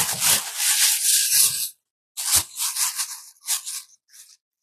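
Food packaging being crinkled and torn open, a dense rustling that stops under two seconds in, followed by a few light knocks and brief rustles.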